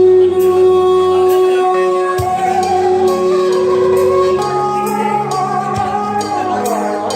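Music: a slow melody of long held notes, changing pitch in steps, over a backing of light percussion hits.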